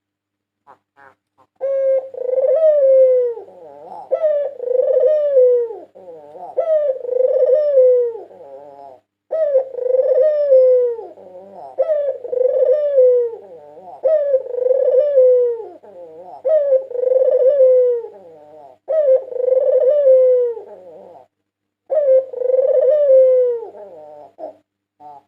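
White Barbary dove (puter putih) cooing over and over, each coo about a second long and falling in pitch, with two short breaks in the run.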